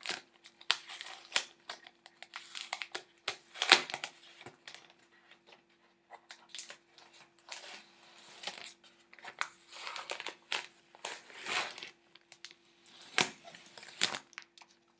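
Protective plastic film being peeled off an Asus GeForce GTX 1070 graphics card, crinkling and crackling in irregular bursts throughout.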